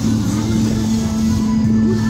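Background music with a long held low note.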